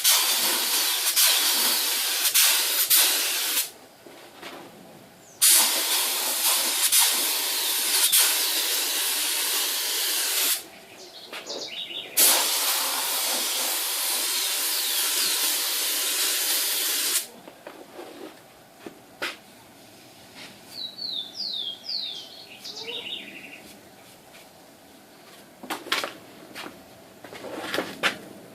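Compressed-air paint spray gun hissing in three long bursts of several seconds each, with short pauses between. After it stops, a bird chirps a few times.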